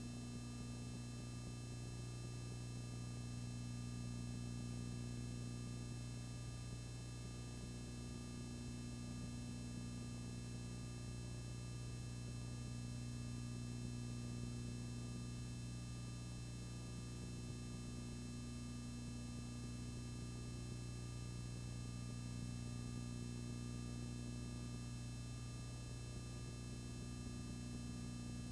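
Steady electrical hum with a faint hiss, unchanging throughout, with no other sound.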